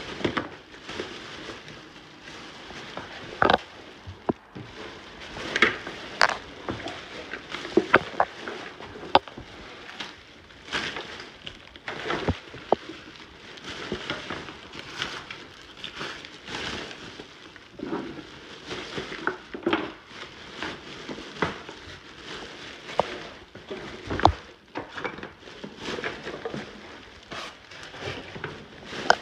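Trash and debris being handled and cleared: irregular crinkling, rustling and clattering, with a few sharper knocks and a dull thump about 24 seconds in.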